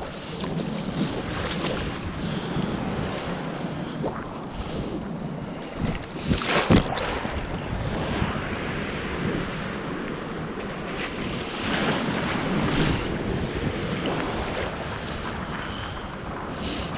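Sea surf washing and foaming around someone standing in the shallows, with wind buffeting the microphone. A brief sharp sound stands out about six and a half seconds in.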